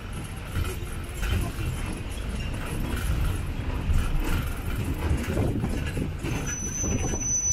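Tourist road train running slowly along a street, heard from aboard an open carriage: a steady low rumble with irregular knocks. A thin, high whine comes in near the end.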